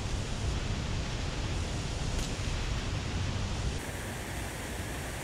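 Steady rushing noise of the river, with a heavy low rumble; the level drops slightly and the tone shifts about four seconds in.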